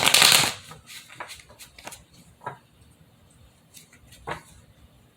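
A deck of tarot cards being shuffled in a short rush at the start, then light scattered taps and clicks of cards being handled.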